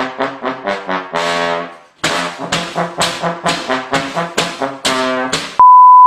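Brass music playing a run of quick, evenly spaced staccato notes, with a short break about two seconds in. Near the end it is cut off by a loud, steady, high test-tone beep of the kind that goes with TV colour bars.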